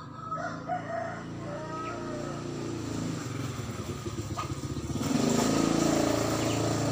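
A motor vehicle's engine running steadily, getting louder about five seconds in.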